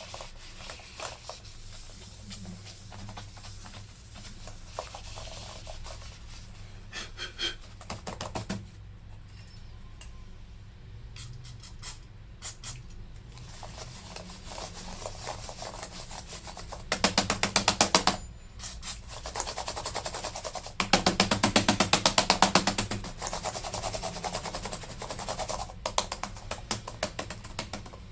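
Laptop keyboard keys being pressed over and over, clicking, to work contact cleaner in under keys that stick. Scattered clicks break into two runs of rapid, louder clicking in the second half.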